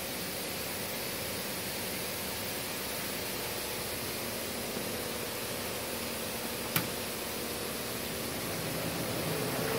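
Cooling fan of a MultiPro CUT 120 inverter plasma cutter running with a steady whir, switched on and idle. A single sharp click comes about seven seconds in, and the whir grows slightly louder near the end.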